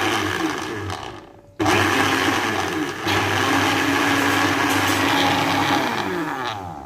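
Electric blender motor running in two spells. It cuts off about a second and a half in, starts again straight away, runs steadily, then spins down near the end.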